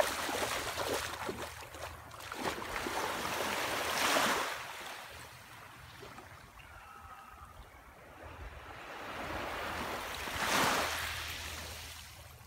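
Small waves washing on a sandy shoreline, with wind on the microphone, swelling and fading in surges loudest about 4 and 10 seconds in; splashing from feet wading through shallow seawater.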